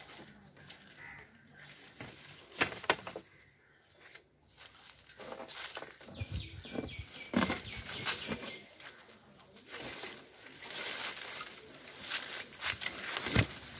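Mango leaves and twigs rustling and swishing as a Wolf-Garten fruit-picker basket on a long pole is pushed and twisted through the tree's canopy. Several sharp clicks and knocks come through it, the loudest about three seconds in and near the end.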